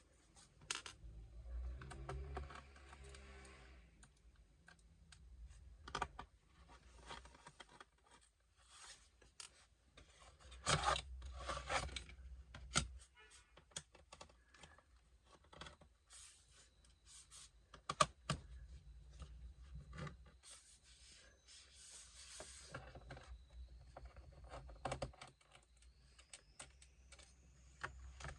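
Screws being unscrewed from the plastic bottom cover of a Dell Inspiron 5570 laptop: scattered small clicks, scrapes and rattles of the screwdriver, screws and case.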